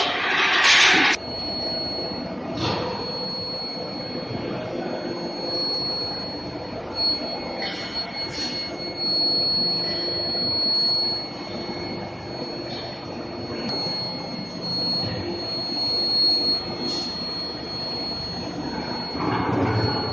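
Metal induction heating furnace running, with a steady high-pitched whine over continuous machinery noise. A short loud hiss comes about a second in, and a few fainter ones follow.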